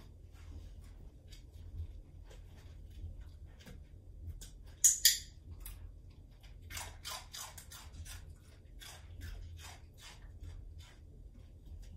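Soft scuffs, taps and rustles of dog training on carpet: the dog's feet shifting on and around an upturned plastic bowl perch as it is fed treats. Two sharp hissing clicks in quick succession about five seconds in are the loudest sounds.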